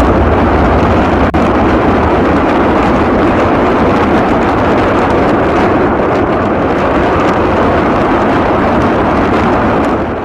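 Truck-mounted multiple rocket launchers firing rocket salvos: a loud, continuous rush of launch noise with no break between rockets, cutting off abruptly at the very end.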